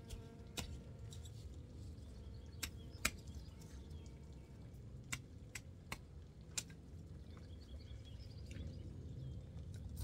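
Scattered sharp clicks and knocks of a long-handled hand tool working stony, grassy ground, with one louder knock about three seconds in. Faint bird chirps come in near the end.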